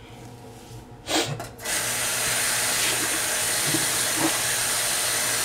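Sink tap turned on about a second and a half in, after a couple of brief spurts, then water running steadily from the faucet into the sink to rinse conditioner out of the hair.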